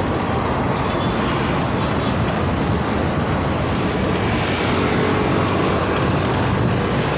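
Steady road traffic noise from cars and trucks moving close alongside, heard from a bicycle riding in the bike lane, with a heavy low rumble underneath.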